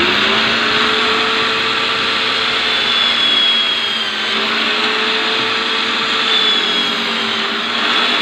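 Electric drill mounted upside down under a bench, running steadily as a tapered bit bores into a piece of coconut shell pressed onto it by hand. A motor whine, its pitch sagging slightly at times under the load, sits over a gritty grinding hiss from the shell.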